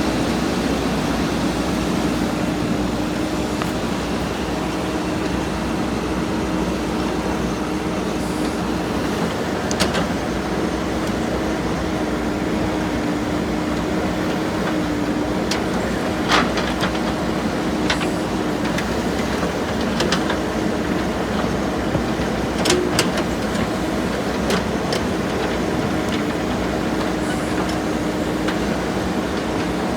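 JCB 3DX backhoe loader's diesel engine running steadily while it works, with a few sharp clanks and knocks scattered through, the loudest about sixteen and twenty-three seconds in.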